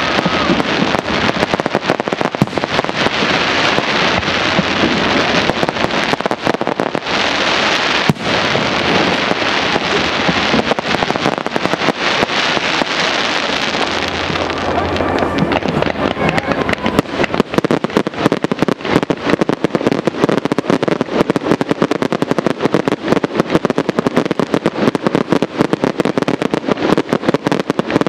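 Aerial fireworks display: a continuous dense crackle with scattered bangs of bursting shells. The crackling turns into a rapid, steady stream of many small pops in the second half.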